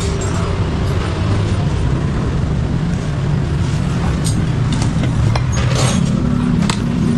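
A motor vehicle engine running steadily, with scattered light clicks and taps over it.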